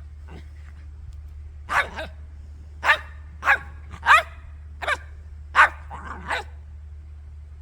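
Dogs barking while playing rough with each other: about seven short, sharp barks spaced half a second to a second apart, starting about two seconds in.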